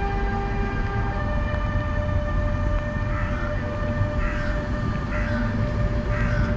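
Departing NS Traxx electric locomotive and its intercity coaches: the locomotive's electric whine over the rumble of the train. The whine changes pitch about a second in and then holds one steady tone. From about halfway, short squeals come roughly once a second.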